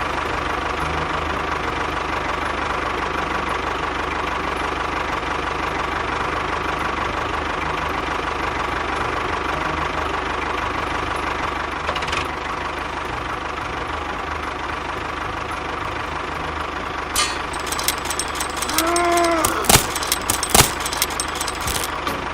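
An engine running steadily at idle. A few sharp knocks and a brief squeal come in the last few seconds.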